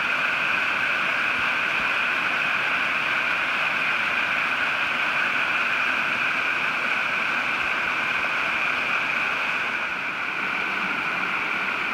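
Small mountain-brook waterfall cascading over granite ledges: a steady rushing hiss of falling water, a little quieter about ten seconds in.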